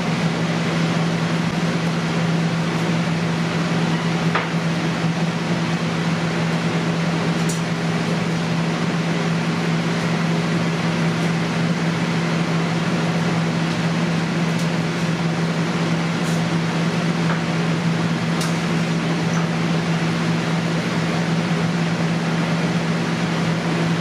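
Steady fan noise and hum from commercial kitchen equipment, with a strong low hum note, and a few faint clicks.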